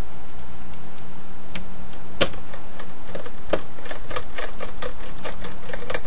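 Screwdriver driving a screw into a desktop PC's metal chassis: a few scattered sharp clicks, then from about the middle a quick run of clicks at about four a second.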